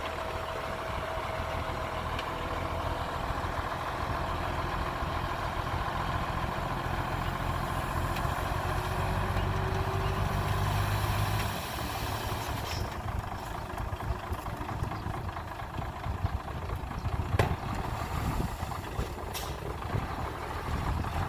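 Heavy truck engine running steadily. About halfway through its low hum drops and turns rougher, and there are two sharp knocks near the end.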